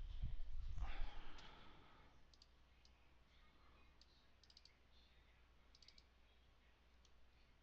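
Faint clicks of a computer mouse, some single and some in quick runs of two or three, after a muffled rumble and rustle of handling in the first second or so.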